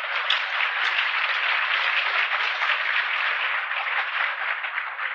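Audience applauding: a steady, dense clatter of many hands clapping, heard through an old restored recording with little bass or treble.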